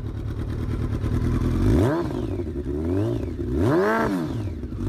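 Sport motorcycle with an aftermarket slip-on exhaust idling, then revved in three quick throttle blips, each rising and falling in pitch, the middle one smaller.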